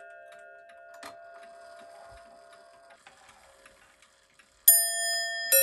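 Seth Thomas Sonora mantel chime clock: the last ringing of its bells dies away while the movement ticks softly, with a click about a second in. Then near the end a hammer strikes one of its large bells loudly, and a second bell follows less than a second later, the first notes of its chime.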